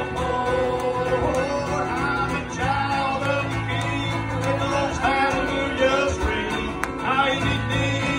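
A man singing a country gospel song to his own strummed acoustic guitar, through a microphone.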